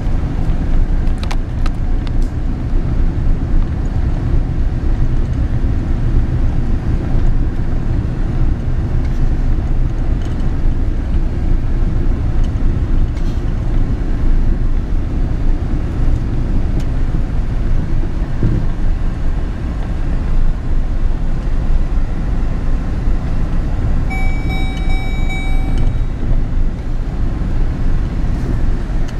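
Steady low rumble of a 2006 Chevrolet Silverado pickup's engine and road noise, heard from inside the cab while it is driven. Near the end, a steady high tone sounds for about two seconds.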